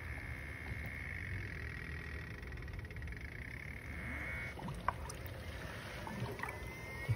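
Electric coolant pump of a BMW N55 running during the cooling-system bleed, drawing coolant in from the filler funnel and pushing out trapped air. There is a steady high whine over a low hum that stops about four and a half seconds in, followed by a few light clicks.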